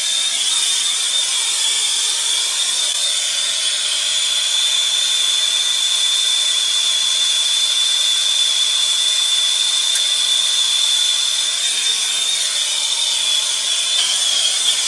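Turbo torch burning steadily, a loud hiss with a high, steady whistle in it, as its flame heats copper pipe joints for soldering.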